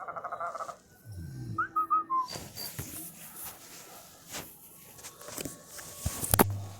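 Redmi Pad SE stock ringtones playing in short snippets: a brief run of rapid electronic notes, then a short whistle-like chirping tone, followed by scattered clicks, the sharpest near the end.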